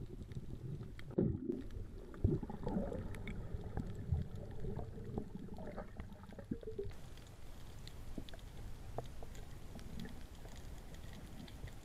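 Muffled underwater sound heard through an action camera's waterproof housing: a steady low rumble of moving water, with irregular gurgles and knocks in the first half.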